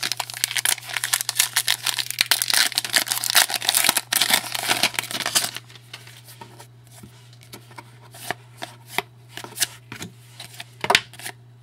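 Trading-card pack wrapper being torn open and crinkled in the hands for about five and a half seconds, followed by sparser light clicks and rustles of cards being handled and flicked through.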